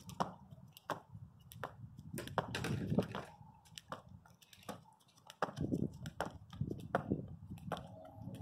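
Jump rope slapping the asphalt with a sharp tick on each turn, about once every three-quarters of a second, in a steady skipping rhythm.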